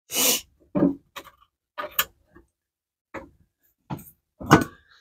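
Tools and small metal parts being handled on a car's metal floor pan: a scattered series of short clicks and knocks, the loudest about four and a half seconds in.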